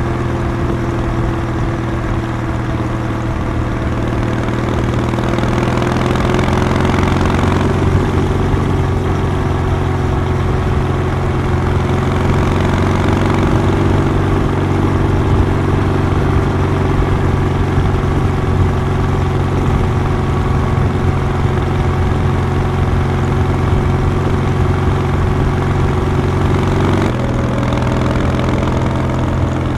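Kawasaki W800's air-cooled parallel-twin engine and exhaust, heard from the rider's seat, running steadily at road speed. The note rises a little in the first several seconds and changes abruptly near the end.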